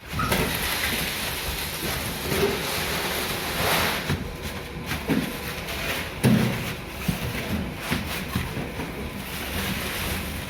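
Steady rushing noise of concrete being poured and placed for a floor slab, with a few scattered knocks.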